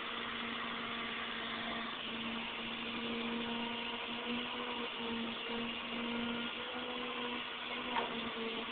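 Excavator's diesel engine running steadily, with a constant hum that pulses slightly. A faint clink comes near the end.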